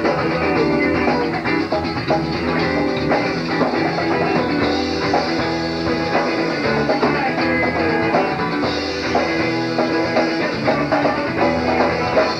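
Southern rock band playing: guitars with bass and drum kit.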